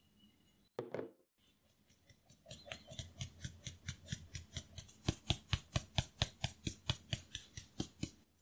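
Hand-held stainless-steel mesh sieve being shaken and tapped to sift flour into a glass bowl: a steady run of quick, even ticks, about four or five a second, growing louder partway through.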